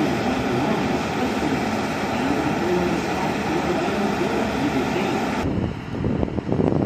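Steady, loud mechanical noise with faint wavering tones over it. About five and a half seconds in, it changes abruptly to a lower, gusty rumble.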